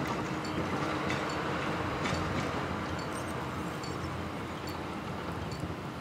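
Volvo L110H wheel loader's diesel engine working under load while its plough and ice-ripping blade scrape along the packed-snow road, pushing snow. A steady grinding rumble with a low hum under it, fading slightly as the loader moves away.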